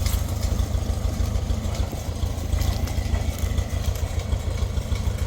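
Engine of an old Case 580CK backhoe running at a steady low speed while it is being driven, a constant low drone.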